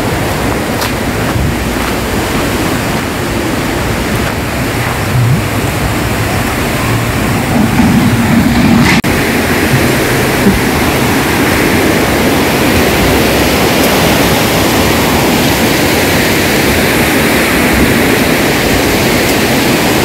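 Steady rushing of a river's flowing water, a dense even noise. It drops out for an instant about nine seconds in at an edit, then carries on slightly louder.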